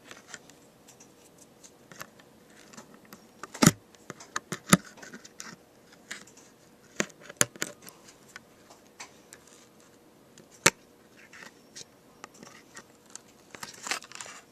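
Laminated card pages handled and threaded onto metal book rings: scattered small clicks, taps and scrapes, with several sharper clicks, the loudest around four seconds in and another about ten and a half seconds in.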